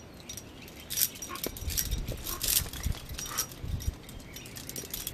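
Scattered metallic clinks and scrapes of a rock climber's hardware, carabiners and quickdraws on the harness, as he starts up the rock.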